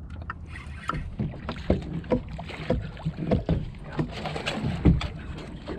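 Irregular knocks and water sloshing against a small fishing boat while a hooked largemouth bass is fought up to the side, over a steady low rumble.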